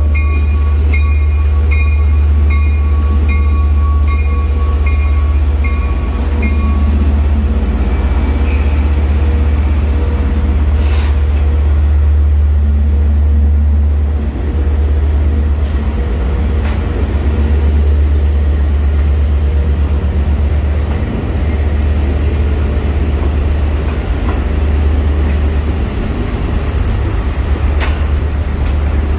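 Long Island Rail Road diesel train passing through a grade crossing: a heavy, steady low rumble as the locomotive and bi-level coaches roll by. The crossing bell dings about twice a second for the first six or so seconds, then falls silent. After that the rumble carries on, with a few sharp wheel knocks as the cars cross.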